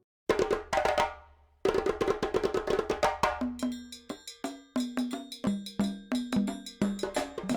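Background music: after a brief silence a new track begins with one struck chord, then a fast, steady run of sharp percussive hits with short pitched notes.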